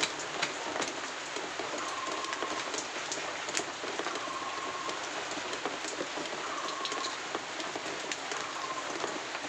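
Steady hiss of rain, with scattered light ticks and a short high chirp repeating about every two seconds.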